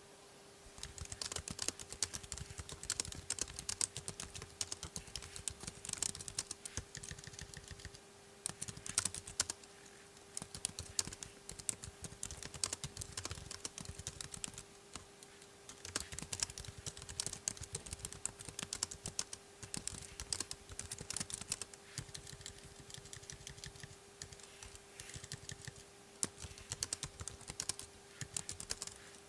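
Typing on the Chesona budget Bluetooth keyboard for the 10.2-inch iPad, its plastic keys clicking in fast runs with short pauses. A steady faint hum sits underneath.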